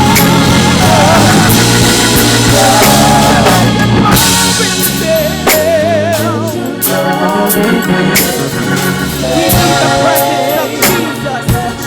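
Gospel church band playing an instrumental groove: organ chords and melody with a wavering vibrato, over drum kit and bass.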